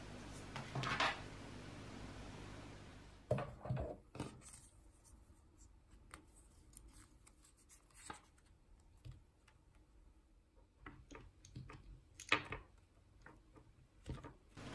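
Hands handling a paper card of thin dust-guard stickers, peeling them off the backing and pressing one onto an AirPods case. The sound is soft rustles and scattered small clicks and taps, and it starts about three seconds in. The sharpest click comes about twelve seconds in.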